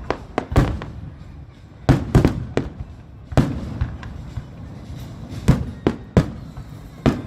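Aerial fireworks shells bursting, about ten sharp booms at uneven intervals, some in quick pairs, with a low rumble between them.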